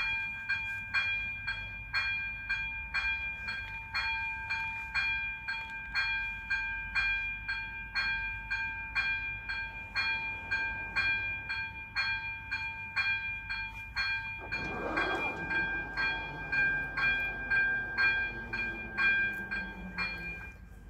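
Level-crossing warning bell striking about twice a second, each strike ringing at the same set of pitches. About two-thirds of the way in, the barrier drive starts with a slowly falling hum as the booms lower, and the bell stops just after the barriers are down near the end.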